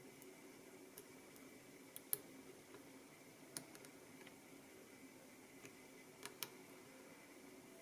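Faint, irregular small clicks of a lock pick and tension wrench working the pins in a Master Pro Series padlock, the loudest about two seconds in, over a low steady hum.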